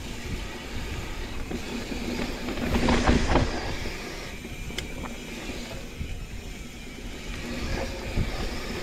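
Mountain bike rolling down dry dirt singletrack: tyres rumbling over the ground and the bike rattling, with wind on the microphone. The noise is loudest in a run of jolts about three seconds in.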